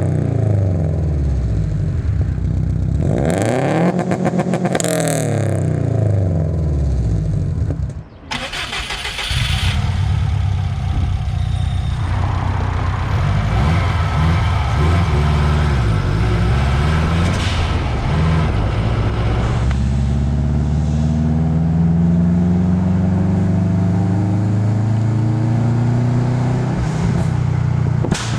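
Turbocharged Subaru WRX flat-four engine revving hard in quick blips, with its Turbosmart blow-off valve venting in short hissing bursts as the throttle closes. About eight seconds in the sound drops briefly, then the engine runs on and climbs steadily in pitch toward the end.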